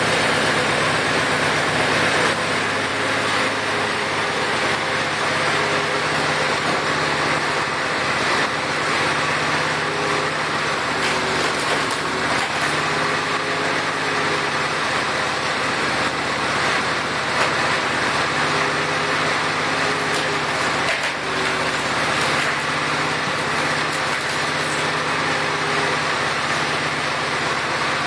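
Case 444 garden tractor's single-cylinder Kohler engine running steadily, driving the hydraulic pump of a homemade log splitter. A higher tone comes and goes a few times over the steady engine note.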